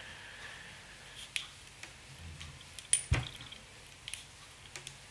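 Small handling clicks and ticks of fly-tying tools and thread at the vise, with one sharp knock about three seconds in.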